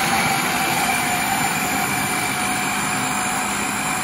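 Food processor motor running steadily, its blade churning icing sugar and butter into buttercream with a constant whir.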